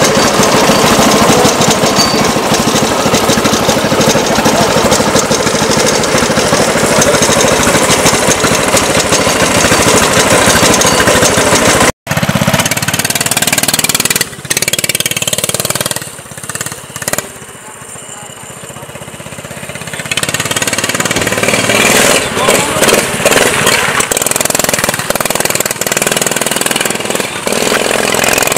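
Subaru-engined racing kart's engine idling close up, a fast, steady pulsing. About twelve seconds in it cuts off abruptly, and the kart is heard driving away, its engine fading, then growing loud again as it comes round, rising and falling with the throttle.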